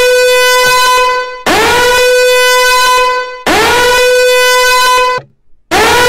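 Countdown timer alarm going off at zero: a loud horn-like buzzing tone blasting over and over, about every two seconds. Each blast swoops up in pitch at its start, then holds one steady note.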